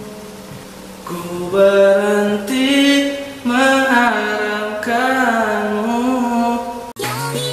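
A young man singing a slow Indonesian ballad solo into a close microphone, sliding between and holding long notes. About seven seconds in it cuts off abruptly and different music with a bass line starts.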